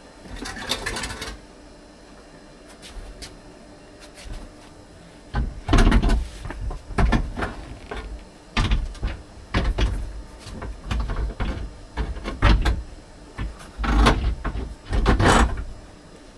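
Knocks, thuds and scraping as a double seat is set onto its swivel base in a van and worked into position: a short scrape near the start, then a run of loud bumps and scrapes over the last ten seconds.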